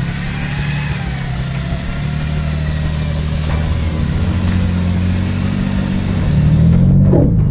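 A Toyota 4x4's engine running under load as the vehicle crawls up a steep, muddy slope, with the revs rising about six seconds in.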